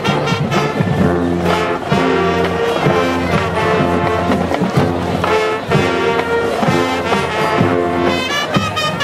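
High school marching band playing: the brass section holds loud chords over steady drum hits.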